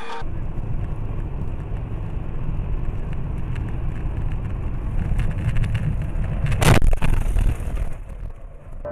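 A car driving, heard from inside: a steady low engine and road rumble, then a loud crash impact about seven seconds in. The sound drops away soon after.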